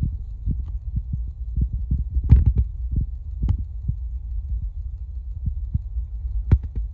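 Low rumble with many irregular soft thumps on the microphone, and a few sharp clicks about two, three and a half, and six and a half seconds in.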